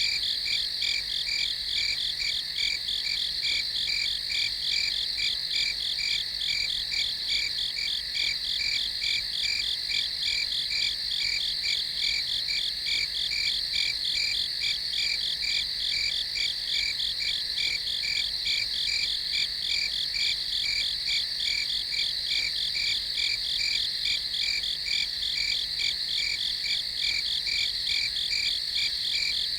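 Night chorus of crickets: a steady high trill with a rapid, evenly pulsing chirp beneath it, unchanging throughout.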